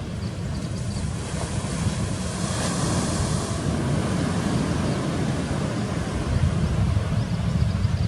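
Ocean surf breaking and washing on the beach, with wind rumbling on the microphone. The hiss of the water swells louder about two and a half seconds in.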